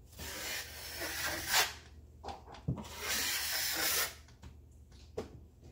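Drywall skim blade scraping joint compound across a wall in several long strokes for a final skim coat, with short pauses between strokes.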